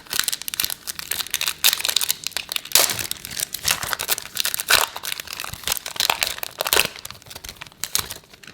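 Wrapper of a basketball trading card pack being torn open and crinkled in the hands, a dense, irregular crackling that dies down near the end.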